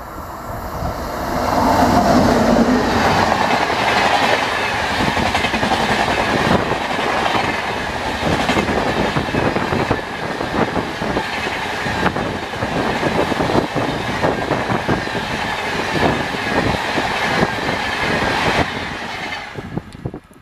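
Indian Railways Jan Shatabdi Express, hauled by an electric locomotive, passing close by at high speed: a loud rush that swells about two seconds in as the locomotive goes past, then a continuous rhythmic clatter of the coach wheels over the rail joints. The sound falls away sharply near the end as the last coach passes.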